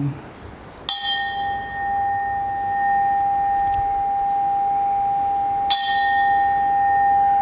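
An altar bell struck twice, about a second in and again nearly five seconds later, each stroke ringing on with a long steady tone. It is rung at the elevation during the consecration of the bread in the Eucharist.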